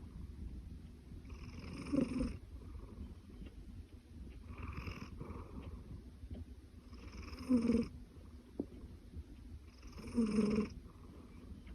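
Domestic cat purring with a continuous low rumble, broken by four louder, throaty breaths about every two and a half to three seconds.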